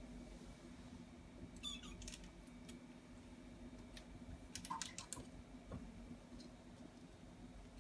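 Quiet room tone with a few faint, sharp clicks and ticks in two small clusters, about two seconds in and again about five seconds in.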